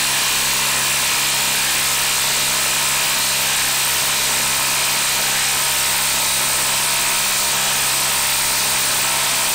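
Milwaukee 2850 M18 brushless impact driver hammering steadily under load as it bores a long bit down into a log round, an unbroken rattle from start to finish.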